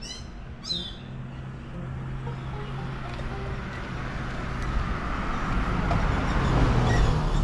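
A bird gives a quick run of falling chirps near the start. Then a vehicle approaches, its engine and tyre noise growing steadily louder.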